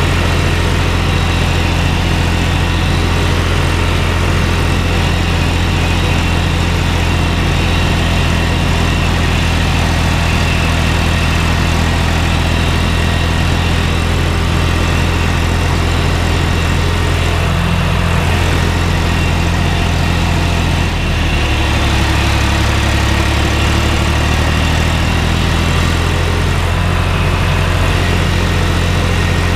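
John Deere tractor's diesel engine running steadily while the tractor is under way, heard close up from the driver's seat. About two-thirds of the way through, the engine's note shifts briefly, then settles back.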